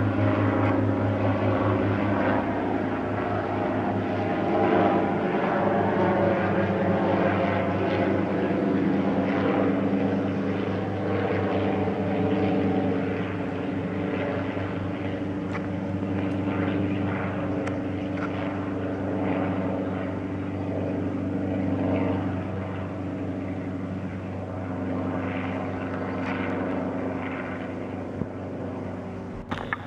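Small helicopter flying low overhead: a steady engine and rotor drone, loudest in the first half and easing off toward the end as it moves away.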